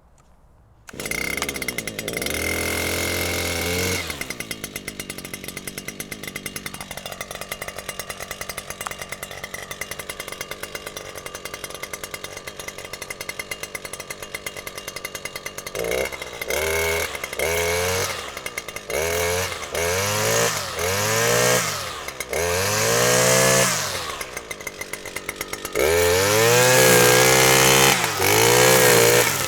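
Small petrol engine of a grass trimmer catching about a second in and running at high revs, then dropping to a steady idle. From about halfway it is revved up and down over and over, each rev a rising then falling pitch, and near the end it is held at high revs.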